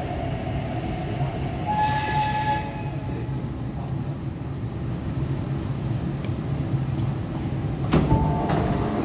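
MTR R-Train electric multiple unit coming to a stop at a platform: a steady low rumble from the running gear, with a brief high squeal about two seconds in. Near the end a sharp knock is followed by two alternating beeping tones, the door chime starting.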